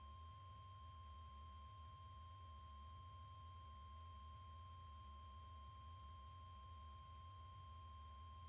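Near silence: a faint steady high tone over a low hum.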